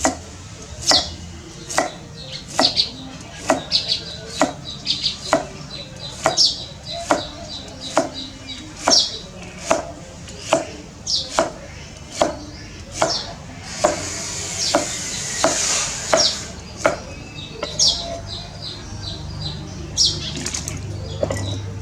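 Knife chopping food on a cutting board in steady strokes, a little over one a second. A brief hiss comes partway through.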